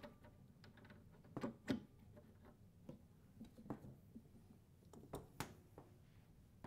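A handful of faint, irregularly spaced clicks and knocks as a welding cable's twist-lock quick-connect plug is handled, moved over and seated in the welder's front-panel socket.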